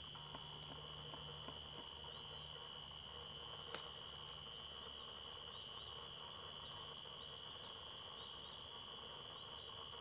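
Insects trilling on one steady high note, with faint short chirps above it and a single sharp click just under four seconds in.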